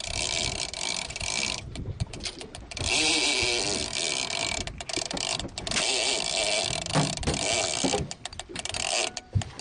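Boat engine running under a steady hiss of wind and water. The hiss drops out abruptly a few times.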